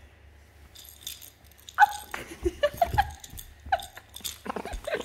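A baby monkey's short, high squeaks during play, several in a row from about two seconds in, with a quicker run of pulsed calls near the end: the young monkey's playful 'laughing'.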